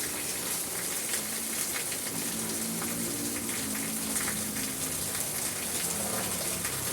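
Steady rain falling, with individual drops striking a surface now and then.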